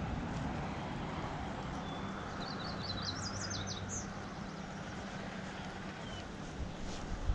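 A distant engine drones low and steady under a low outdoor rumble, and about two and a half seconds in a small bird sings a short phrase of quick high notes.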